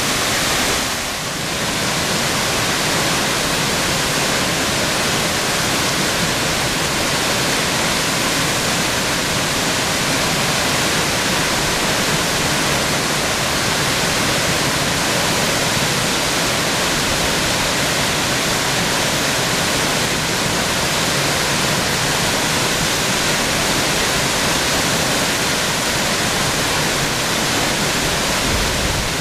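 Tall waterfall falling in several strands onto rocks: a steady, loud rush of water, dipping briefly about a second in.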